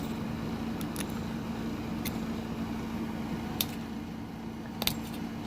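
A few light clicks and taps from handling the drilled padlock, spaced about a second apart, over a steady low hum.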